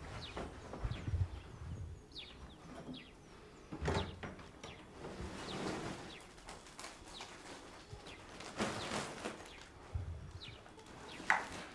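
Rustling and soft knocks of a large sack being handled and a person moving about, with short high chirps scattered throughout.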